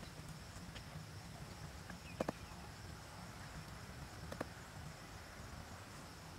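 Rounded stones knocking together as they are set into a stone border: a quick double clack about two seconds in and a single clack a couple of seconds later. Under it is a faint steady insect drone.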